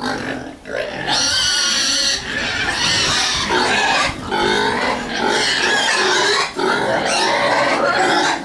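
Young pigs squealing loudly as they crowd around a man handing out feed. Starting about a second in, long squeals follow one another almost without a break.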